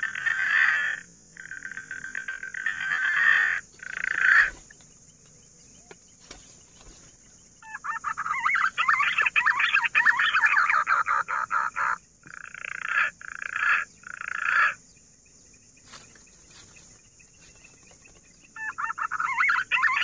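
Punai (green pigeon) calls in repeated bursts of one to four seconds, a rapid rough warbling, in three spells with quiet gaps between, the longest in the middle.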